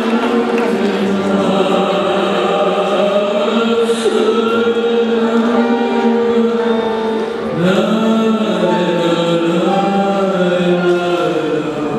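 Choral music of sustained, chanted voices, the accompaniment to a rhythmic gymnastics ribbon routine, played over an arena's sound system. A new phrase of voices glides up about two thirds of the way in.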